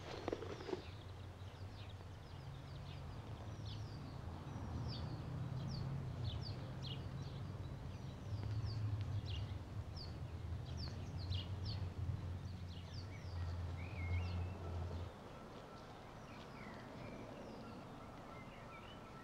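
Outdoor birdsong: a string of short, high, down-slurred chirps over a steady low rumble, which cuts off abruptly about fifteen seconds in.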